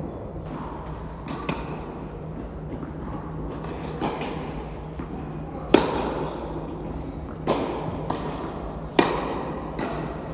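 Tennis ball struck back and forth in a rally: sharp racket hits and ball bounces every couple of seconds, the loudest a near forehand about six seconds in, each echoing in a large indoor hall over a steady low hum.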